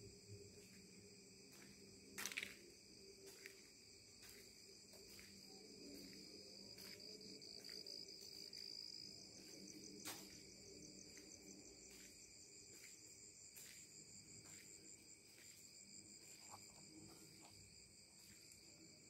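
Faint, steady chorus of crickets, with a few sharp clicks, the loudest about two seconds in and another about ten seconds in.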